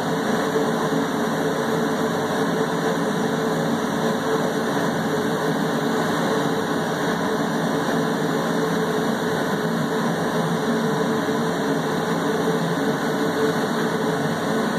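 Steady machine hum and fan-like rushing from running lab equipment, with a constant low tone and no change in pitch or level.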